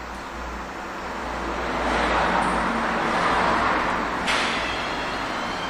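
Road traffic noise swelling and fading, with a sudden burst of hissing noise about four seconds in.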